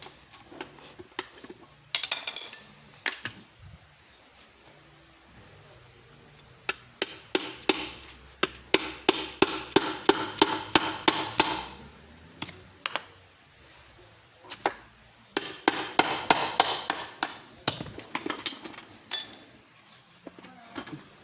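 Hammer blows on metal, in runs of quick strikes with a ringing edge, as parts of an opened Chevrolet Corsa gearbox are knocked loose.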